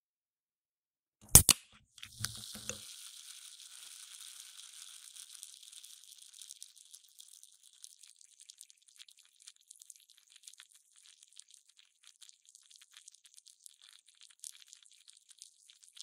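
A soft-drink can is opened: the ring-pull cracks open with two sharp clicks about a second in, then the escaping gas hisses and settles into a long, fine crackle of fizzing carbonation bubbles.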